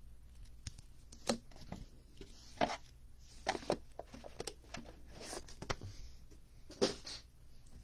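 Trading cards being handled at a table: scattered clicks and short rustles, a handful of louder ones spread through.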